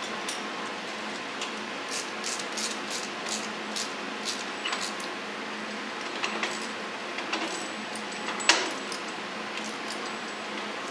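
Hand tools and steel bolts clinking and clicking in a quick series of light metallic ticks, then a single sharper metal clank about eight and a half seconds in, over a steady background hum.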